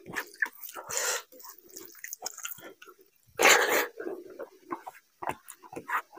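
Close-up mukbang eating sounds: wet chewing and lip smacking, with fingers squishing rice and mutton curry on the plate. A louder rushing burst about half a second long comes about three and a half seconds in.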